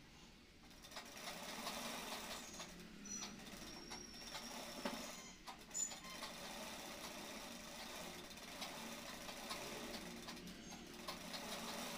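Sewing machine running, stitching a folded hem in cloth fed under the presser foot, with a couple of sharper clicks near the middle.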